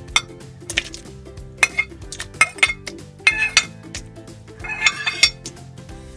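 A metal utensil clinking and scraping against a stainless steel pan of boiled bow-tie pasta, in half a dozen short bursts of clatter, the loudest near the end.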